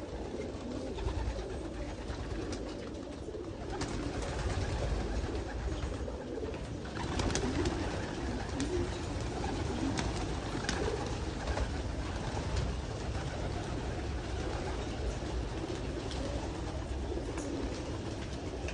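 Many racing pigeons cooing together in their loft, a steady overlapping chorus, with a few sharp taps here and there.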